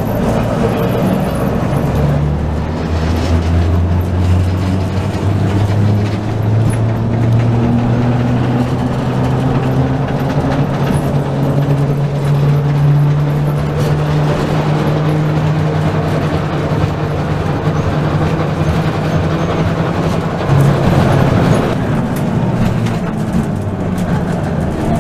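BMEŽ 31 heritage tram pulling away on street track: the low hum of its electric traction motors rises steadily in pitch as it gathers speed, then holds. The hum falls away near the end. A constant rumble of the wheels running on the rails sits beneath it.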